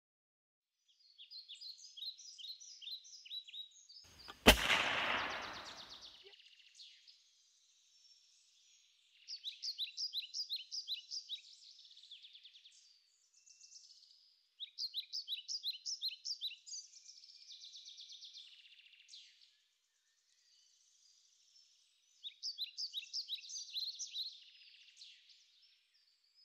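A single sharp report about four and a half seconds in, dying away over a second and a half: a .357-calibre AirForce Texan big-bore air rifle firing. Around it, bouts of bird song, fast trills of high chirps, come and go four times.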